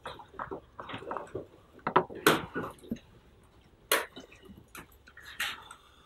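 Scattered small clicks and rustling noises, with the loudest sharp rustles about two, four and five and a half seconds in.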